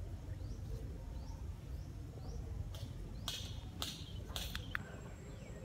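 Outdoor ambience: faint short rising chirps repeating about every 0.7 seconds over a low rumble. A few short hissing bursts of noise come in the middle.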